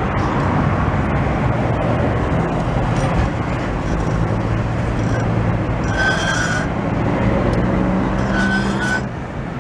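Steady road traffic and engine noise with a low hum, broken by short high-pitched squeaks about six seconds in and again near eight and a half seconds.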